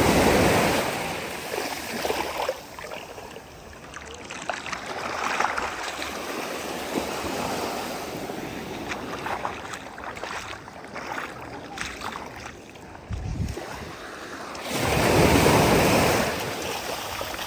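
Ocean waves breaking on the shore: a loud breaker right at the start and another about fifteen seconds in, with smaller surges and the hiss of washing water between them.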